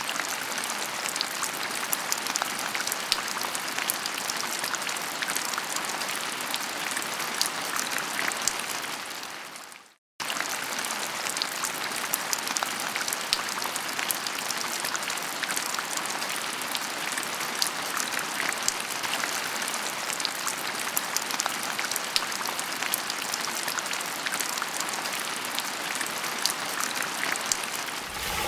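Water splashing and pattering: a steady hiss of many small drops. It fades out just before ten seconds in, goes silent for a moment, then starts again.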